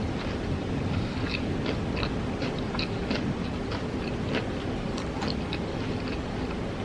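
Close-miked chewing and biting of crunchy fried chicken tenders and fries, a quick irregular run of small crisp crunches and wet mouth clicks over a steady low rumble.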